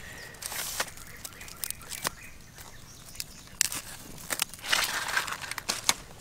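Grilled frogs being pulled off bamboo skewers and dropped into a clay bowl: scattered clicks and crinkling of the charred skin and skewers, with a burst of rustling about two thirds of the way through.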